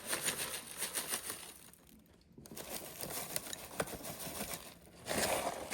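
Crinkling and rustling of a granola bag, with small clicks and rattles as granola is shaken out, broken by a brief pause about two seconds in.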